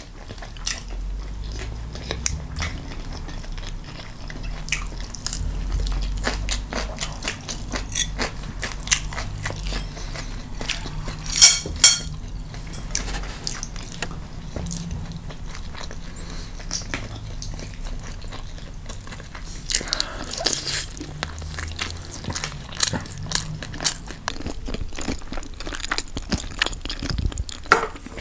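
Close-miked eating of Korean fried chicken and spicy chicken feet: biting, crunching and chewing with many small sharp clicks, and a brief louder noise about eleven seconds in.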